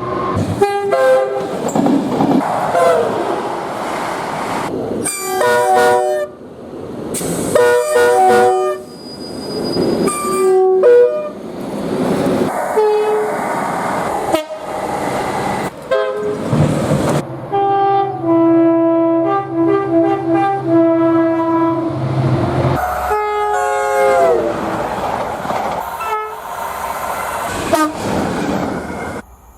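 British train horns sounding one after another in a run of short clips joined by abrupt cuts. Some are quick blasts and some are held, several switching between a high and a low note, over the rumble and rail noise of passing trains.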